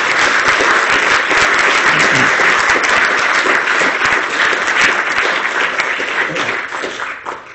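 Audience applauding after a lecture, a dense steady round of clapping that dies away near the end.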